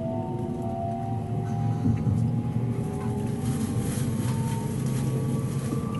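Traction motors of a 683-series electric limited-express train whining, heard from inside the passenger car. Several tones climb slowly in pitch as the train accelerates, over a low running hum with a few light clicks from the track. Rolling noise grows from about halfway in.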